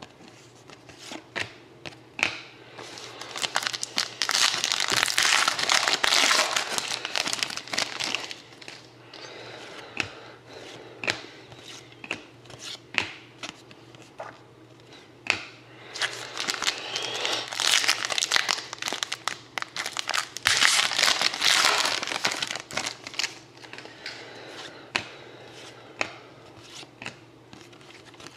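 Foil trading-card pack wrappers being crinkled and torn open by hand, with short clicks and taps of cards being handled; the crinkling comes in two longer spells, one a few seconds in and one past the middle.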